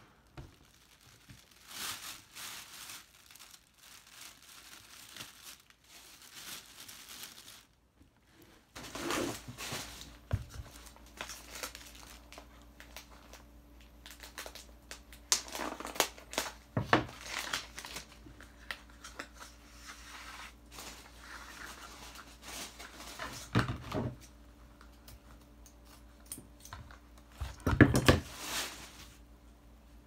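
Clear cellophane gift wrap crinkling and rustling as it is handled around a basket, in irregular bursts, with scissors cutting ribbon.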